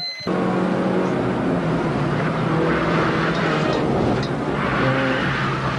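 Rally car engine running at steady revs under load, heard from inside the cabin over road noise. Its note drops a little in the last couple of seconds.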